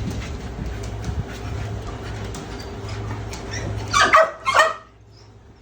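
Bulldog barking twice in quick succession about four seconds in, over a steady low hum.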